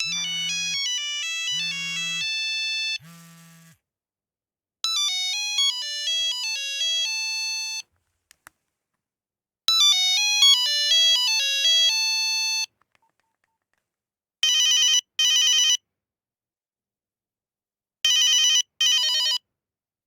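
Nokia mobile phone ringtones. A short electronic ringtone melody of stepping beeps plays three times with short pauses between. Then a trilling ring sounds in pairs of short pulses, twice.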